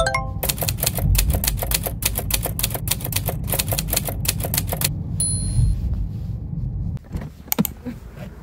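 Typewriter sound effect: rapid key clacks at about five a second for roughly four and a half seconds, then a short high bell ding. A low car-cabin rumble runs underneath, and a few clicks follow near the end.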